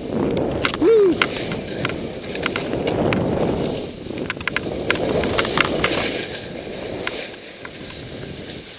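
Skis sliding and scraping through soft, chopped-up snow in successive turns, the noise swelling and easing about every two seconds, with scattered sharp clicks and taps. About a second in, a brief rising-and-falling tone cuts through, the loudest moment.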